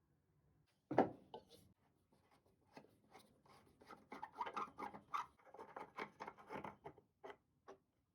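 Wooden side table being taken apart by hand: a sharp knock about a second in, then a quick run of short scrapes and clicks of tools and loosened wooden parts.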